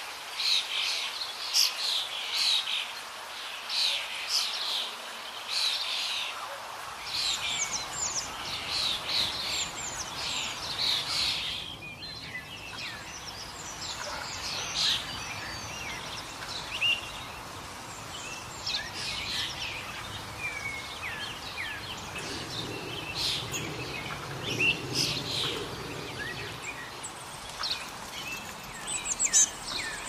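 Birdsong: several small birds chirping and singing in quick, overlapping short high calls over a steady background hiss.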